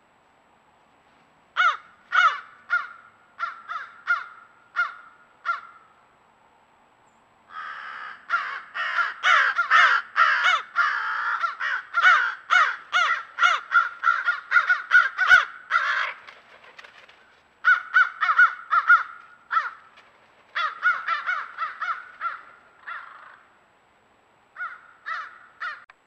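Crows cawing in runs of short, quickly repeated caws with short pauses between runs. For a long stretch in the middle the caws come thick and overlapping, more than one bird calling at once.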